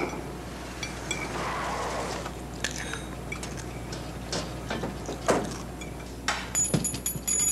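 Fork clinking and scraping on a china plate during eating, with scattered small clinks and knocks of dishes.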